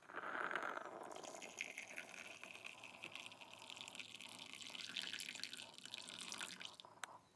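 Liquid poured steadily from a glass carafe into a ceramic mug, filling it. The pour stops just before the end.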